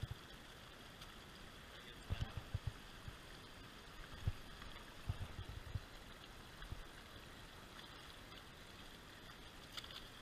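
Shallow rocky creek running over stones: a steady rush of water, with a few short low thumps scattered through, clustered about two and five seconds in.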